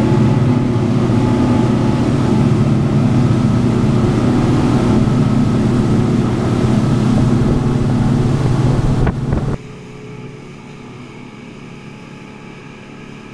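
Twin outboard motors driving a fishing boat at speed: a loud steady engine hum with wind and rushing water. About nine and a half seconds in, the sound drops suddenly to a much quieter, steady engine-and-water rumble.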